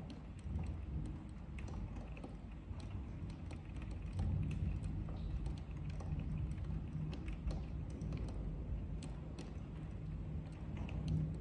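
A steady low rumble with irregular light ticks and crackles scattered through it, most like a rain-and-thunder ambience.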